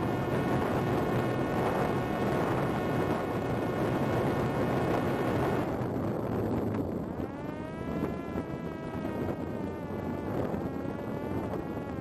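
Parrot Disco fixed-wing drone's electric pusher motor and propeller buzzing at high speed under a heavy rush of air. About halfway through the rush falls away and the motor's pitch drops, then wavers up and down as the drone slows and banks.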